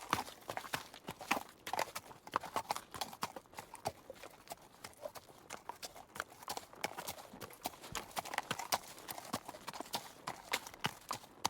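Horse's hooves clip-clopping: a quick, uneven run of sharp knocks.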